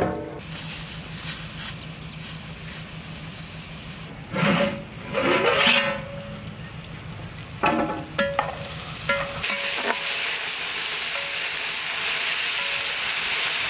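Cauliflower and onions frying in oil in a large steel pot: a steady sizzle takes over about two-thirds of the way in. Before that, a low hum with a few metal clatters as the pot's lid and ladle are handled.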